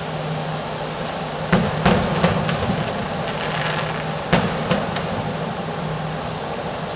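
Distant aerial fireworks shells bursting: a group of about four sharp bangs around one and a half to two and a half seconds in, then about three more just after four seconds. Under them runs a steady hum and hiss.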